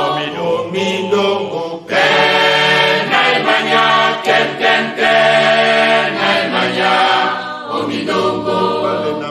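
A group of voices singing together unaccompanied, in long held phrases that break off briefly about two seconds in and again near the end.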